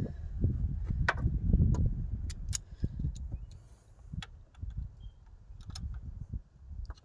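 Hand tools clinking sharply against metal, a few scattered times, while the alternator's mounting bolts are worked loose. Low rumbling handling noise runs through the first couple of seconds.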